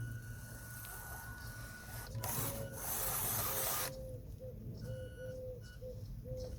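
Small electric motors and gearboxes of radio-controlled construction models whirring. A loud hiss comes in about two seconds in and lasts nearly two seconds, then a whine starts and stops in short spurts.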